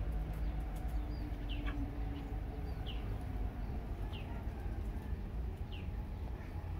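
A bird calling with short, falling chirps every second or so, over a low steady rumble.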